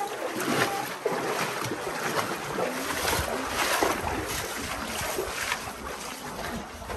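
Seawater splashing and sloshing around a small boat, with irregular splashes and some wind on the microphone.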